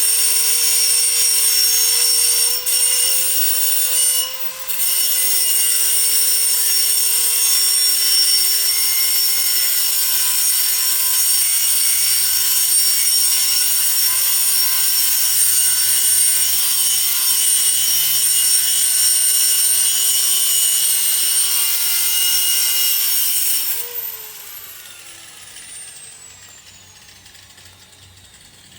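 Hammerhead 6-amp 4.5-inch electric angle grinder running at full speed with a high whine while cutting a metal chain link fence post, with a brief dip about four and a half seconds in. Near the end the grinder is switched off and its whine falls away as the disc spins down.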